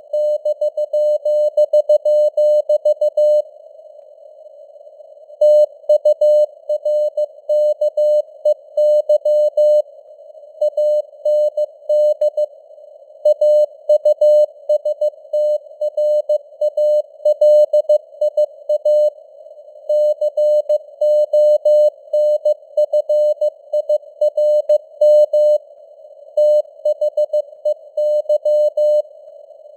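Morse code (CW) sent at 15 words per minute: a single steady mid-pitched tone keyed on and off in dots and dashes, with short pauses between words, over a soft hiss of simulated radio noise.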